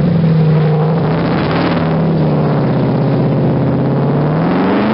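A car engine's deep, steady exhaust note as the car crawls past, rising in a rev near the end.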